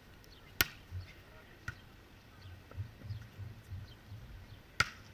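A volleyball struck sharply by hand three times: a loud hit about half a second in, a fainter one a second later, and another loud one near the end.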